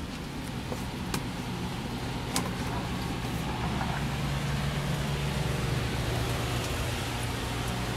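A steady low mechanical hum with a wash of noise, growing slightly louder about halfway through, with a few light clicks near the start.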